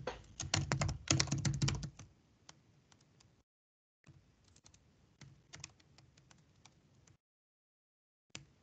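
Typing on a computer keyboard: a quick run of key clicks, loudest in the first two seconds, then fainter and more scattered with short gaps of silence.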